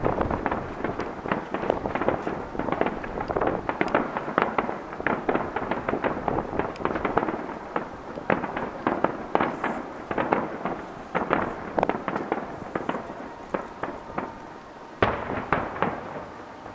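Aerial fireworks shells bursting in quick succession, a dense run of booms and crackles, with one sharp loud burst about 15 seconds in.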